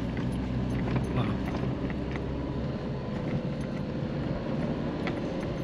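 A car's engine and cabin, heard from inside while it drives over desert sand: a steady low drone with light rattling clicks, and the deepest part of the drone drops away about halfway through.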